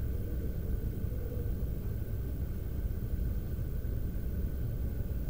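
Steady low rumble with a faint, steady high hum above it: background room noise, with no distinct events.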